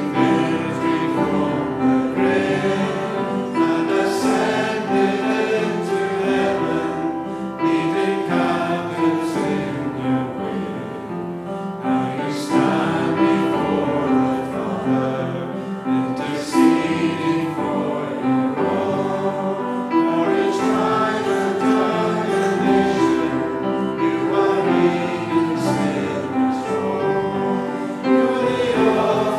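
Many voices singing a hymn together, with long held notes.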